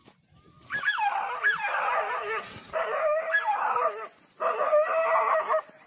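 Dog yelping and whining in distress as a leopard seizes it: a run of high, wavering cries with short breaks, turning into a steadier, drawn-out cry near the end.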